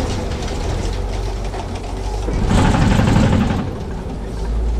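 Safari tour truck's engine running with a steady low drone as it drives along. About two and a half seconds in, a louder rush of noise lasts about a second.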